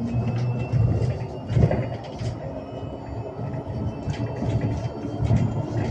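Mercedes-Benz eCitaro battery-electric bus standing at a stop, with a low steady rumble and a thin high whine that rises slightly in the first second, mixed with street noise and a few knocks.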